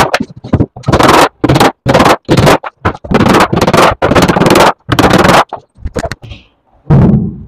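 A hand tool is worked in repeated rasping strokes across plywood, about two strokes a second. The strokes stop about five and a half seconds in, and one more comes near the end.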